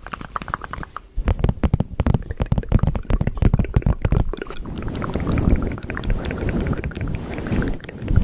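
Hands plucking and rubbing at a fluffy microphone cover up close: a fast run of crackly scratching strokes, which gives way about halfway through to a denser, low rumbling rub.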